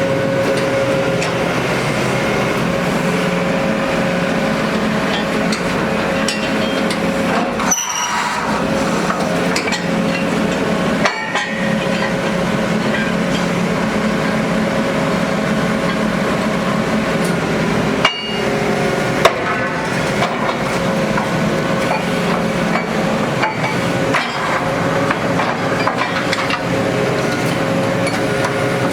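Borehole drilling rig machinery running steadily and loudly, with occasional sharp metal knocks and clinks.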